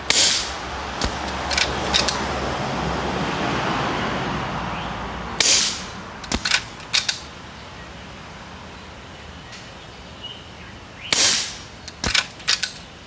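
Three shots from a moderated Skout Epoch .25 calibre PCP air rifle, about five and a half seconds apart. Each is a sharp crack with a short tail, followed within a second or two by two or three quieter clicks.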